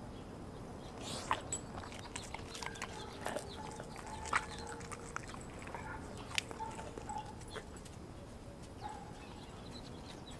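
Dog chewing and mouthing a piece of raw meat: scattered wet clicks and smacks, the loudest about one, four and six seconds in, thinning out over the last few seconds.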